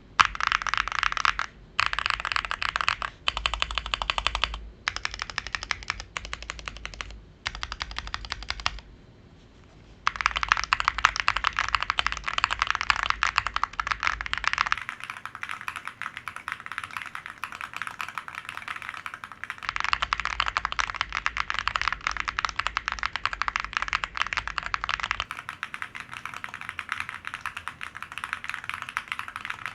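Fast typing on a Bilibili World 65 mechanical keyboard: a dense run of key clacks, broken by a few short pauses in the first nine seconds and a brief silence about nine seconds in.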